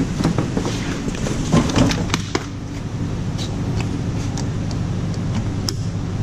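Handling noise: scattered clicks and knocks as a cardboard box is shifted and hands work the spark plug wires on an engine, over a steady low hum.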